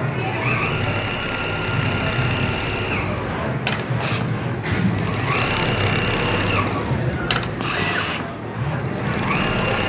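Jack 1200x800 computerized pattern sewing machine stitching, with rapid needle-and-mechanism clatter. A motor whine rises, holds and falls three times as it speeds up and slows between runs, with a few sharp clicks in between.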